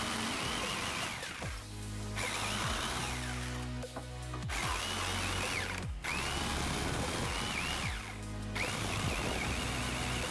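A DeWalt DW300-BR 500 W corded jigsaw running and cutting a curve through a wooden board. The cutting sound breaks off briefly a few times.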